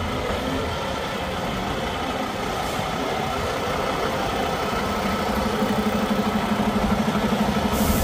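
Kenworth T680 semi truck's diesel engine running at low speed as the truck rolls slowly forward, getting louder as it comes closer, with a steady low throb in the last few seconds.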